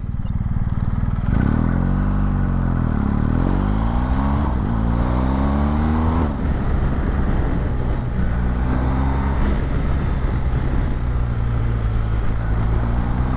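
BMW motorcycle engine running under way, its pitch rising and falling in the first few seconds, changing abruptly about six seconds in, then holding fairly steady.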